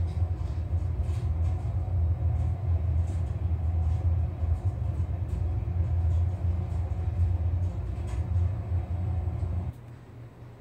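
Steady low rumble of the NASTAR human centrifuge spinning during a G profile, with faint scattered clicks. The rumble drops away suddenly near the end.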